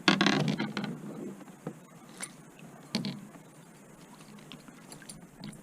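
A small bass being landed into a boat: a loud burst of splashing and rattling as it comes out of the water, then scattered clicks and a knock about three seconds in as it is handled.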